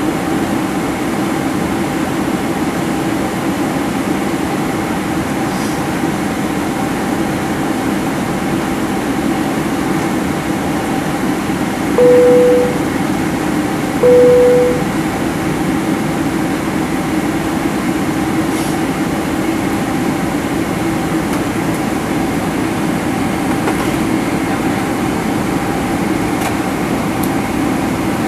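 Steady drone of jet engines and rushing air inside the cabin of a Boeing 767-300ER in flight. Twice, about two seconds apart, a single-tone cabin chime sounds at the same pitch, each under a second long and louder than the drone.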